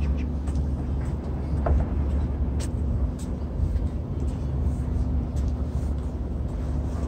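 Outdoor ambience: a steady low rumble with a faint steady hum, and scattered light clicks and ticks.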